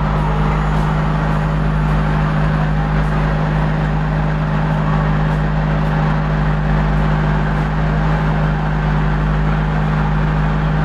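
Kempang ferry boat's engine running steadily under way, a loud, even, low drone that does not change in pitch.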